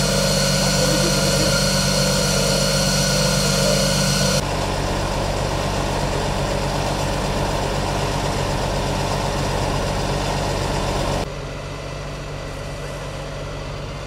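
Fire truck engine running steadily with an even low hum. The sound changes abruptly about four seconds in and turns quieter near the end.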